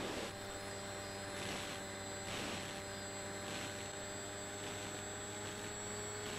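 A steady electrical hum with a faint hiss, its pitch unchanging throughout.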